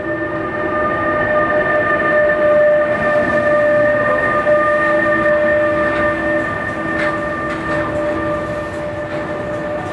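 Electric freight locomotive and tank wagons passing close: a steady rumble of wheels on rail with a sustained whine of several steady tones, loudest as the locomotive goes by. A few sharp clicks of wheels over rail joints come in the second half.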